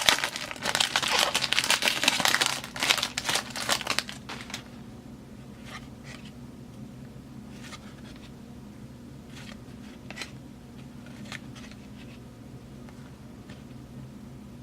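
Foil trading-card pack wrapper crinkling and tearing open for about four seconds, then quieter, with a few soft flicks of cards being handled over a low steady hum.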